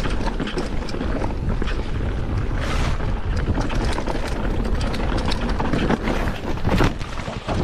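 Mountain bike rolling fast down a rocky trail: wind buffeting the microphone, with frequent knocks and rattles from the bike and its tyres over stones, a louder knock near the end.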